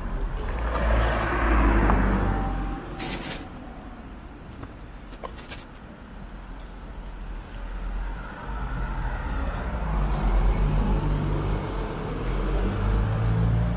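Cars passing on a wet village street: one goes by with a swell of engine and tyre noise about a second or two in, and another approaches and passes over the last few seconds, with its engine hum building up.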